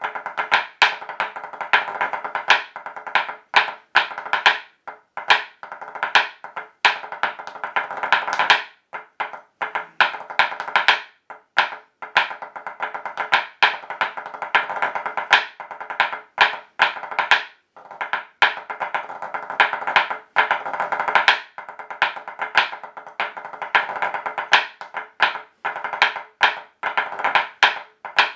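Hard dance shoes beating a hornpipe step on a wooden floor: fast, sharp taps in quick rolls, with brief breaks every few seconds.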